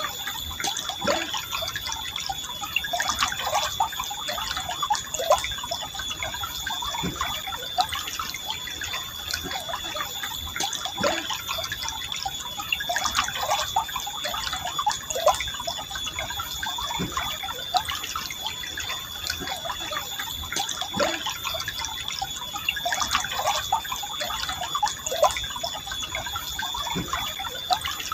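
A small forest river flowing calmly, with a steady rush and frequent little gurgles and plops from the water running over stones. A thin, steady high tone sits underneath.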